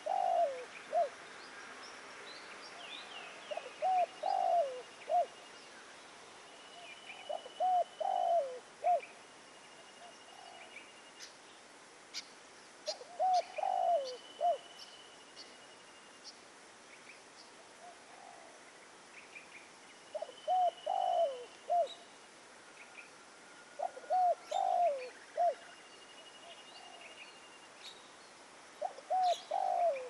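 Spotted dove cooing: a short phrase of several low, bending coo notes, repeated about every four seconds. Thin high whistles and small bird chirps sound between the phrases.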